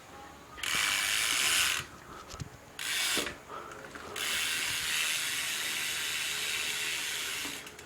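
Primo Mix cassette hub on a BMX rear wheel freewheeling, its pawls ratcheting in a fast, pretty loud buzz. It goes three times: a burst of about a second, a short one, then a long steady run that stops just before the end.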